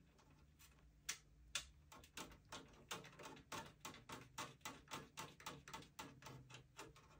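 Faint clicking from a hand screwdriver turning the last screw that fixes a motherboard into a PC case: a few spaced clicks, then about three or four a second from about two seconds in.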